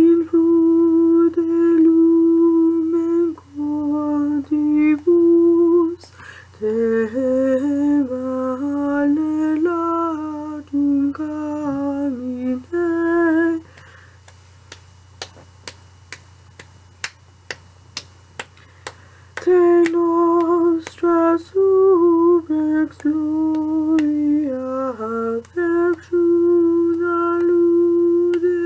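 A woman singing a cappella in long held notes, with no instrument. About halfway through the singing stops for roughly five seconds, and a run of sharp clicks comes about two a second. Then the singing starts again.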